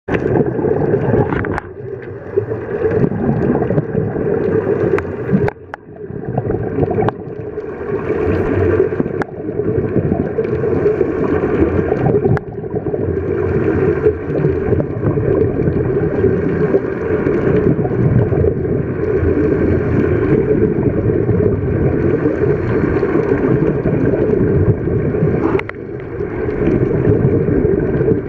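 Underwater rumble and gurgling of scuba divers' exhaled regulator bubbles, heard through an underwater camera housing, with a few sharp clicks.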